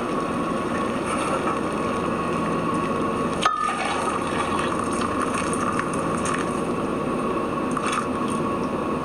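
Hot water poured from a saucepan into glass measuring cups, over a steady hiss, with one sharp click about three and a half seconds in.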